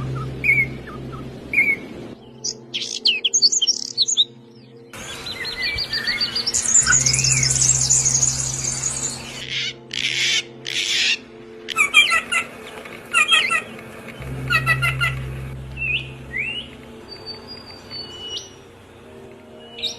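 Songbirds chirping and calling: a string of different short calls and trills that change abruptly every few seconds, with a dense run of rapid chirping in the middle. A low steady hum runs underneath.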